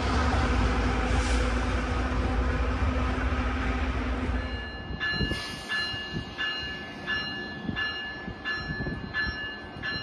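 MBTA commuter train rumbling away after passing, its low rumble slowly fading. Then a warning bell rings steadily, about once every 0.7 seconds, as an Amtrak Acela Express approaches the platform.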